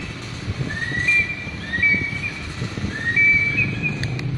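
A repeating high whistling call: a short rising glide followed by a held steady tone, coming round about every second and a half over a low background rumble. Two sharp clicks near the end.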